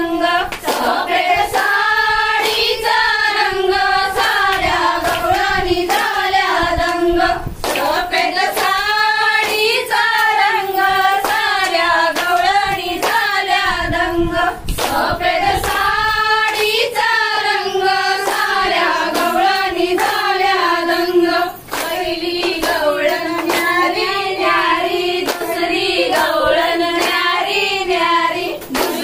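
A group of women singing a traditional Marathi Gauri-Ganpati folk song together, with rhythmic hand clapping.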